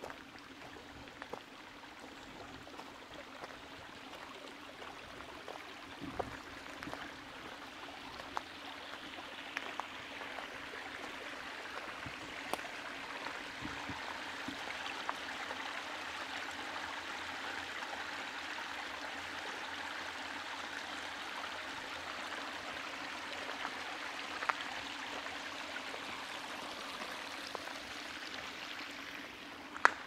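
A small woodland stream running, its rush growing louder over the first half and then holding steady. Scattered light clicks run through it, with one sharper click near the end.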